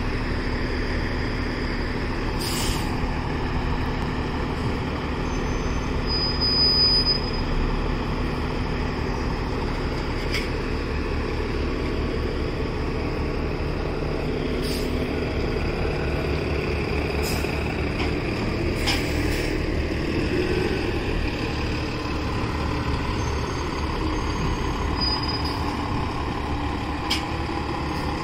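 Articulated New Flyer Xcelsior XD60 bus creeping slowly through an intersection: a steady low engine rumble, broken by several short sharp air-brake hisses and a brief high-pitched squeal about six seconds in.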